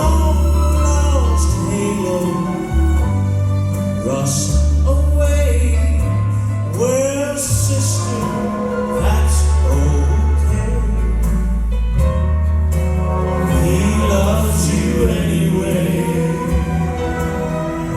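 Male gospel quartet singing in harmony over an instrumental accompaniment with long held bass notes.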